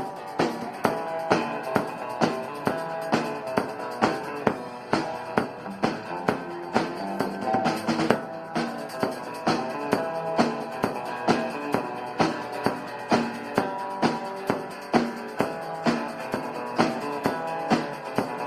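Instrumental rock introduction: a drum kit keeping a steady beat with kick and snare hits under sustained pitched instrument notes.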